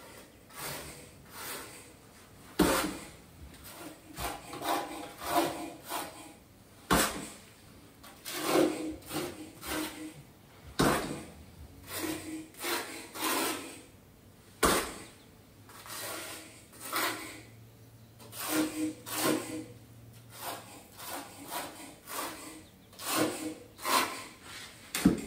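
Repeated irregular scraping strokes of a steel trowel working thin-set mortar, with a few sharp knocks along the way.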